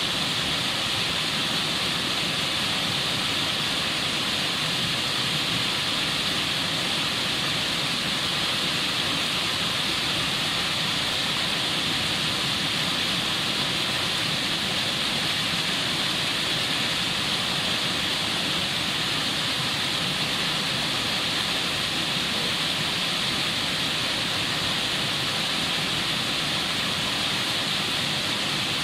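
White-water rapids of a rocky stream rushing over and around boulders: a steady, unbroken rush of water.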